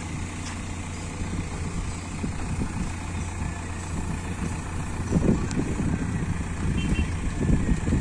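Diesel engines of a farm tractor and a backhoe loader running steadily at low revs, with louder surges about five seconds in and again near the end.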